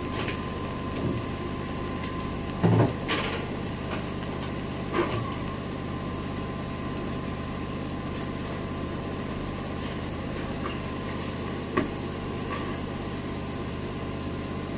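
Kitchen handling: a few short knocks and clunks of pots, lids and plastic containers being moved, the loudest about three seconds in and a lighter click near the end, over a steady low hum.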